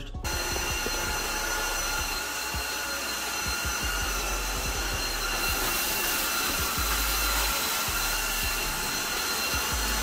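Tosima H1 cordless wet-dry vacuum mop switching on and running steadily, a rush of suction with a steady motor whine over it, as it sucks up spilled rice and cereal from a tiled floor.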